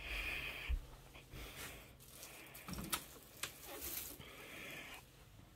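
Faint handling noise: a plush toy and hands rustling close to the phone's microphone, with a few soft knocks and clicks.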